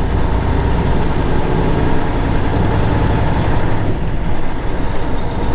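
International semi-truck's diesel engine and road noise heard from inside the cab while driving, a steady low drone.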